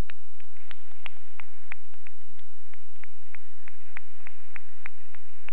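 Hand clapping: one person's claps close to the microphone, evenly paced at about three a second, standing out over the steady patter of an audience applauding.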